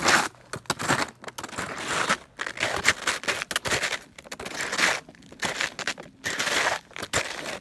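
Footsteps crunching through snow, about one step a second, each step a short burst of crunching.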